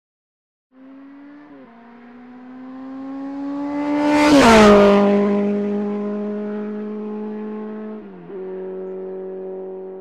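A motorcycle engine revving past: its pitch climbs as it approaches, it is loudest about four and a half seconds in, and its pitch drops as it goes by. A short dip in pitch, like a gear change, comes about eight seconds in, and it begins to fade near the end.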